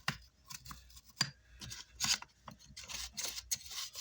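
Irregular short scratching and scraping strokes of a hand tool working at a burnt amplifier circuit board.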